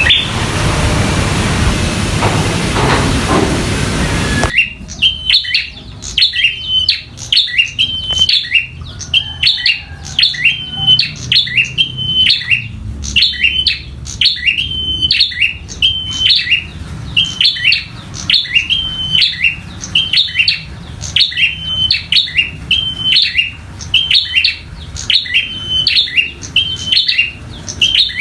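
A prinia (prenjak) calling in a fast, insistent series of short, sharp, high chirps, about one to two a second, in agitated 'fighting' song. For the first few seconds a steady rushing noise like rain covers it, then cuts off suddenly.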